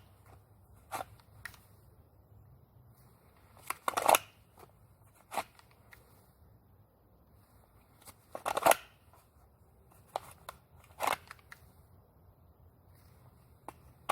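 Handgun being drawn from its holster and put back, over and over, in a no-fire draw drill. The grip, holster and clothing give short scrapes and rustles, three of them louder, a few seconds apart.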